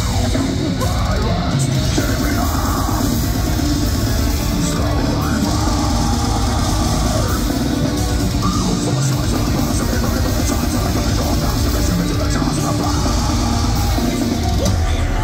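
Deathcore band playing live at full volume: distorted electric guitars and drum kit, with a lead guitar line sliding up and down in pitch over the top.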